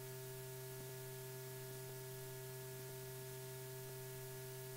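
Steady electrical hum with a hiss of recording noise underneath; no other sound stands out.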